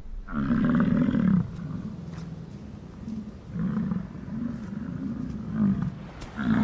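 American bison bulls bellowing in the rut: a long deep bellow near the start, several shorter bellows in the middle, and another long bellow beginning near the end.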